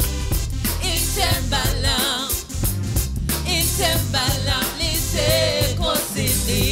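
Live gospel worship music: a woman sings with wavering vibrato into a microphone, backed by a keyboard and a drum kit keeping a steady beat.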